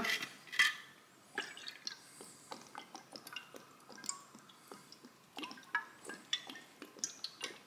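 Balsamic vinegar poured from a bottle, dripping and splashing onto diced vegetables in a stainless steel bowl: faint, irregular small patters.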